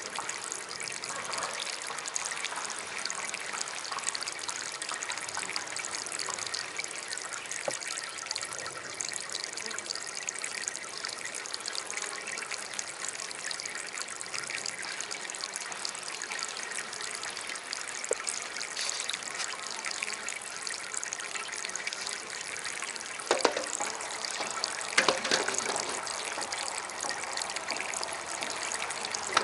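Small DIY water fountain trickling steadily, with a couple of brief louder splashy sounds near the end.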